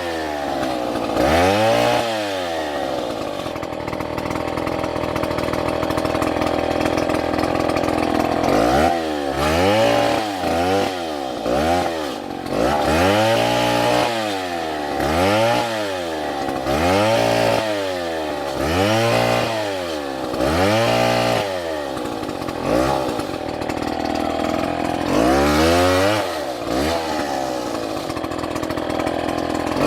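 STIHL two-stroke chainsaw cutting into a palm tree. It runs at high revs for several seconds, then is revved up and down about once a second for a long stretch.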